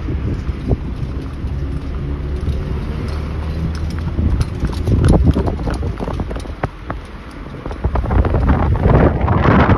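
Wind buffeting the microphone over a steady rumble of street traffic, with sharp clip-clops of a carriage horse's hooves on the road from about halfway through.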